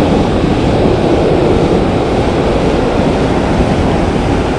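Steady rush of ocean surf breaking on the beach, mixed with wind buffeting the microphone.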